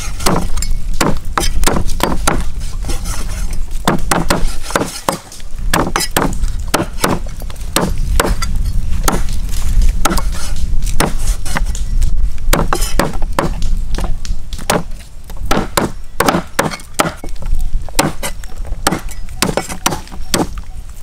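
A cleaver chopping a raw whole chicken into pieces on a thick wooden chopping block. The chops are sharp and come two or three a second, with a couple of short pauses.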